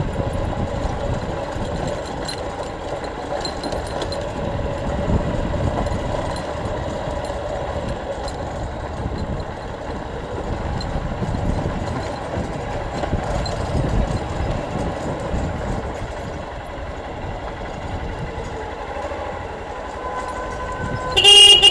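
A vehicle engine runs steadily while driving over a rough dirt road. A short horn toot sounds near the end.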